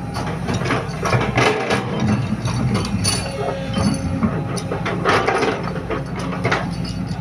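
Sumitomo hydraulic excavator's diesel engine running steadily, with irregular clanks and rattles from the working machine.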